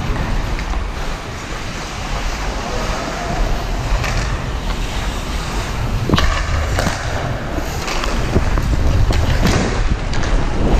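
Ice-skate blades scraping and carving across the ice during hockey play, under a steady rumble of wind on the microphone, with a few sharp clacks, the loudest about six seconds in.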